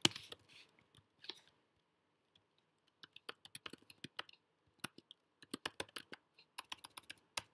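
Typing on a computer keyboard: runs of quick key clicks with short pauses between them. A single sharp click right at the start is the loudest sound, and a quiet gap of about a second and a half comes before the fast typing resumes.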